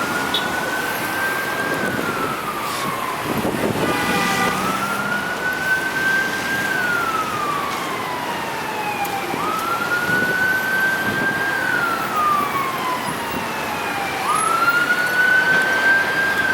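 Emergency vehicle siren sounding a slow wail, rising and falling over about five seconds per cycle, with a short horn-like blast about four seconds in.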